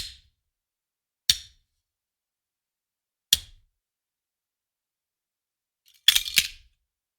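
Handgun magazine thrown onto a hard surface: three single sharp clacks a second or two apart, then a short clatter of several quick hits near the end as it lands and bounces.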